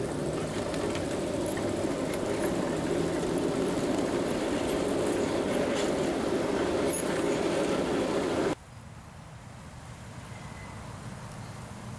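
Ride-on miniature railway cars rolling along the track, heard from aboard: a steady rumble of wheels on the rails with scattered light clicks. About eight and a half seconds in, it cuts off suddenly to a much quieter low hum.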